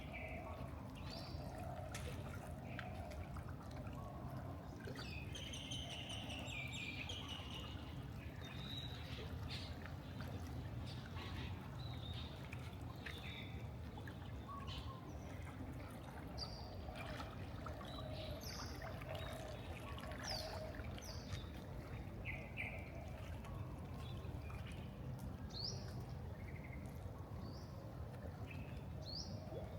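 Assorted birds chirping and calling with short, scattered calls throughout, over a steady low background hum.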